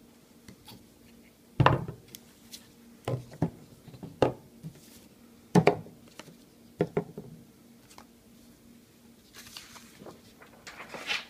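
Plastic acrylic paint bottles and tubes knocking and clacking on a tabletop as they are handled and set down: about seven separate knocks, with two louder ones. A soft rustle near the end.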